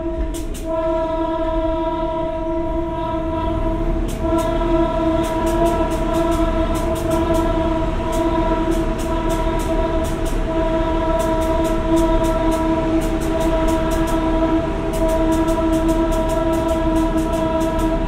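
KiHa 52 diesel railcar idling at a standstill: a low engine rumble with a steady, held whine on top, and faint irregular ticking.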